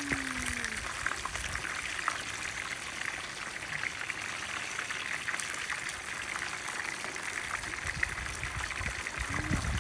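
Chicken thighs frying in oil in a pan: a steady sizzle with fine crackling.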